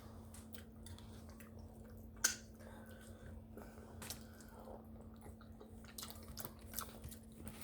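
Faint wet chewing and mouth sounds of spaghetti and meatballs being eaten, with scattered small clicks and one sharper click a little over two seconds in. A steady low hum runs underneath.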